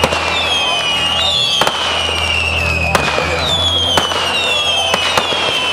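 Fireworks: several overlapping whistling rockets, each whistle gliding down in pitch, with sharp bangs about once a second.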